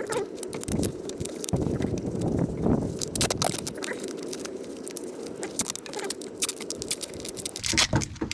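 Duct tape being pulled off the roll and stuck down, a dense crackling run throughout.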